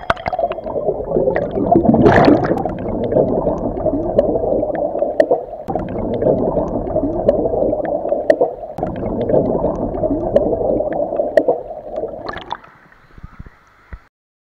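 Water churning underwater, heard through a submerged camera: a dense bubbling and gurgling with scattered sharp clicks. Near the end it suddenly drops to a faint hiss, then cuts off.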